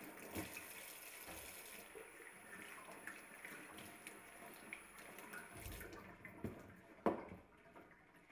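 Tap water running into a stainless steel kitchen sink as lettuce and a tomato are rinsed under it, faintly; the flow stops about six seconds in, and a soft knock follows about a second later.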